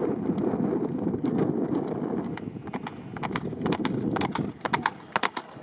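Hoofbeats of a galloping racehorse passing close, a fast run of sharp thuds that grow denser and crisper in the second half. Wind rumbles on the microphone underneath.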